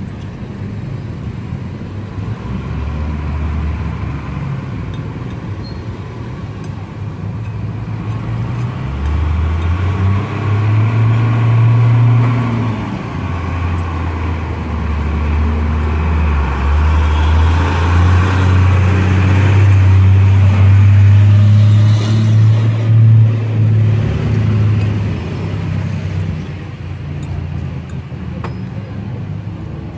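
Road traffic passing close, with the low drone of a heavy diesel cargo truck's engine. The drone swells from about nine seconds in, is loudest a little after the middle, then fades, over the steady noise of passing cars.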